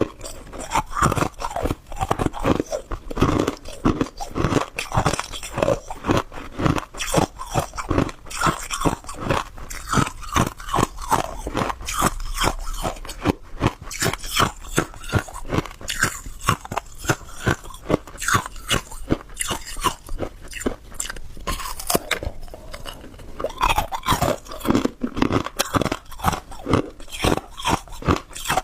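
Hard clear ice being bitten and chewed close to the microphone: rapid, sharp crunches, several a second, continuing throughout.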